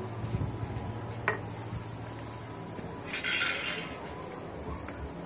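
Chicken tikka sizzling on metal skewers over a charcoal grill, with a sharp metal click about a second in as the skewers are handled. A short, louder hiss comes a little past three seconds in.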